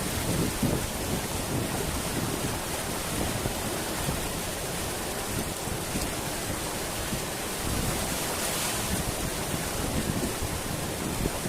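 A mountain river rushing steadily, a continuous even wash of flowing water.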